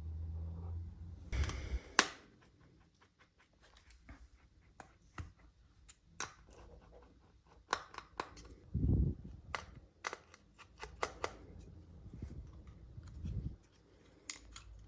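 Small hand tools clicking and tapping against a first-generation iPhone SE as it is taken apart: a string of sharp, irregular clicks, the loudest about 2 s in, with a short dull thud about 9 s in.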